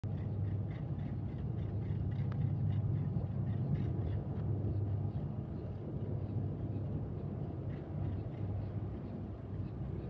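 Low, steady rumble of a distant diesel freight train approaching, its locomotives still far off. Faint high chirps repeat about three times a second over it.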